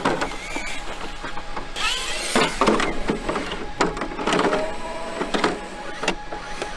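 Hard plastic RC monster truck body shell being handled and pressed onto the chassis: a run of clicks, knocks and rustling, with brief whines of small electric RC motors running nearby.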